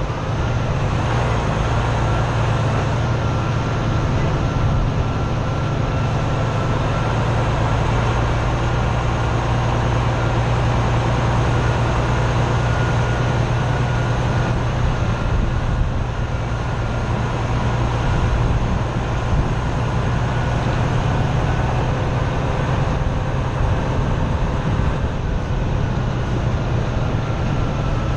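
Freightliner Cascadia semi truck's diesel engine running with a steady low drone as the truck moves, heard from a camera mounted on the outside of the cab.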